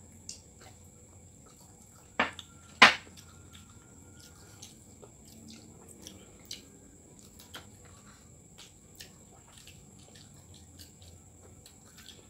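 Eating with the hands: scattered small wet clicks and smacks from chewing and fingers working rice on plastic plates, with two sharp knocks, the second louder, between two and three seconds in.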